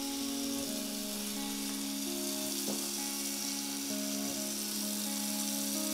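Kitchen tap running steadily into a sink, with background music of slow held notes.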